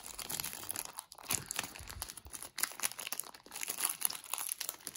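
Stiff plastic Battle Tags collectible pack crinkling and tearing as it is pulled open by hand, a dense run of crackles; the hard plastic resists opening.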